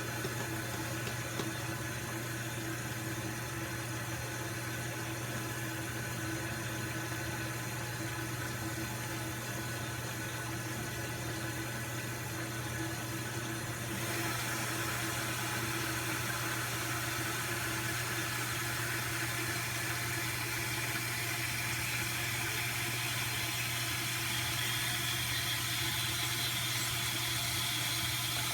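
Steady low hum under an even hiss, with no distinct strokes or knocks; about halfway through the hiss turns brighter and a little louder.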